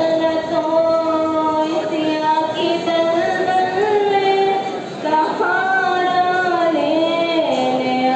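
A high solo voice singing a devotional naat about going to Medina, in long, drawn-out melodic phrases with a brief breath about five seconds in.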